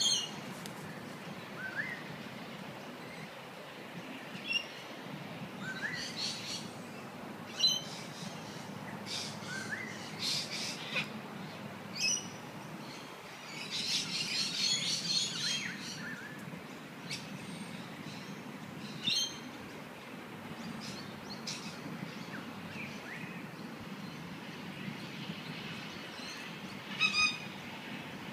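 Birds calling: scattered short high chirps and small rising notes, with a busier stretch of chattering about halfway, over a steady low background hum.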